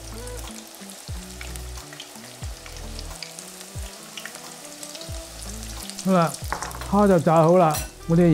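Batter-coated shrimp sizzling in hot oil in a wok during the second, higher-heat fry that crisps the batter, under soft background music. About six seconds in, a louder voice comes in over it.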